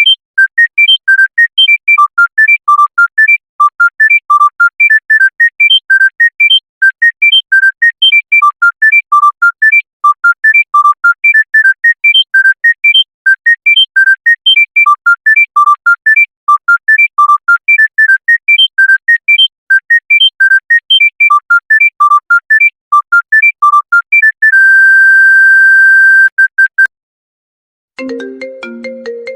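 Mobile phone ringtone: a fast melody of short electronic beeps, one note at a time, ending in one long held beep. After a brief pause a different, lower-pitched ringtone begins near the end.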